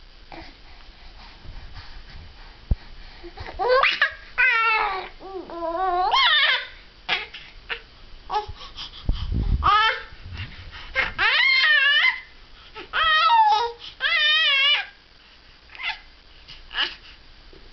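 A baby cooing and babbling in a string of high, wavering, drawn-out vocal sounds, several bursts with pauses between. A soft low bump sounds about halfway through.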